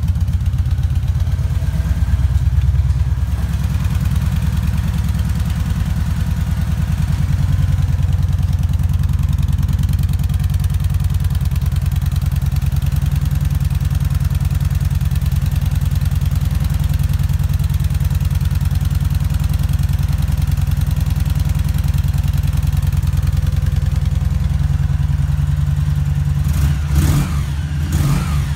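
The 1,700 cc V-twin engine of a 2014 Kawasaki Vulcan Voyager idling steadily through its stock mufflers, with a slight swell about two to three seconds in. A few short knocks near the end.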